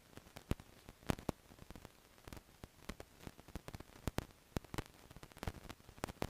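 Irregular crackling pops and clicks, several a second, over a faint hiss: static from a GoPro's faulty audio.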